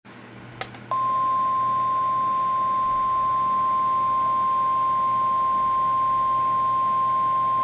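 NOAA Weather Radio warning alarm tone, the 1050 Hz signal sent in the weekly test to set off alert receivers: one steady, unbroken high tone that starts about a second in, with a short click just before it and faint radio hiss underneath.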